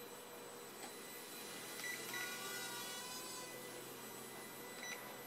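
Faint high-pitched whine of a mini quadcopter's small electric motors, which swells and shifts in pitch in the middle. A few short high beeps come about two seconds in and again near the end.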